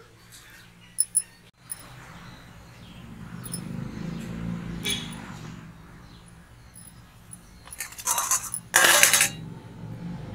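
Dry vermicelli being crumbled by hand and sprinkled into plastic cups: a couple of light ticks about a second in, then crisp rustling and crackling of the brittle strands, loudest near the end. A faint low rumble runs underneath.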